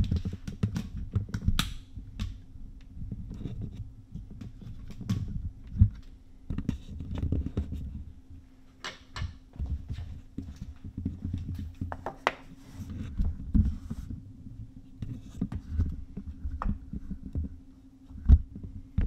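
Camera handling noise as the camera is carried in closer: scattered clicks, scrapes and low bumps over a steady low hum.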